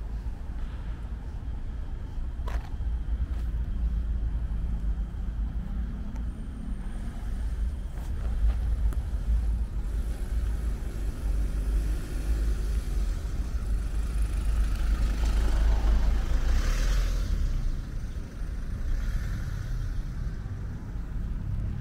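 Street traffic: a steady low rumble of vehicles, with one passing vehicle swelling to a louder hiss about two thirds of the way through.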